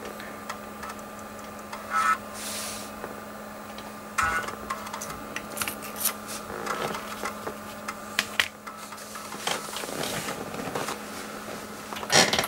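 Sony MPF920-E 3.5-inch floppy drive reading a boot disk: the head stepper buzzes and clicks in short spells as it seeks, over a steady low hum. Near the end comes a quick clatter of keyboard keys.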